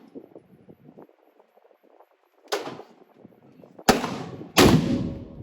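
Three pistol shots. The first comes about two and a half seconds in, and the other two follow close together near the end, each shot with a short echoing tail.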